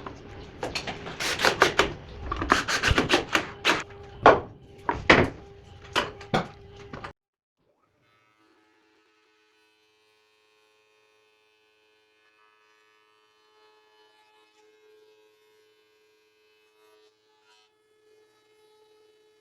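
Irregular sharp wooden knocks and clatter over a steady machine hum. About seven seconds in, everything cuts off abruptly, leaving only a very faint hum.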